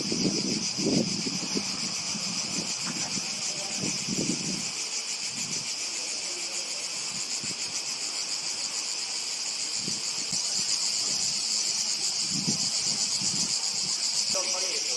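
Chorus of cicadas: a steady, high buzz with a fine fast pulse. A few low rumbles come and go in the first four seconds or so.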